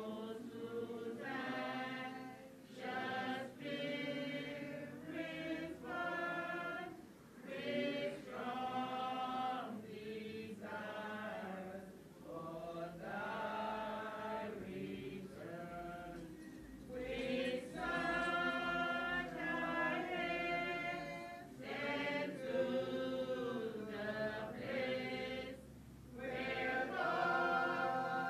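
Unaccompanied choral singing, slow phrases of held notes with short breaks between them.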